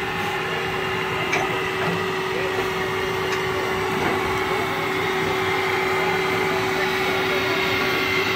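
Small steam locomotive standing with steam up, a steady hiss with a constant hum running through it and a few faint ticks.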